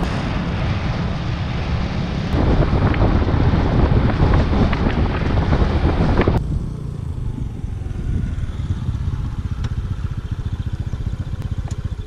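Wind buffeting the microphone over a motor scooter's engine while riding along a road. About six seconds in it cuts off abruptly to a quieter, steady low rumble.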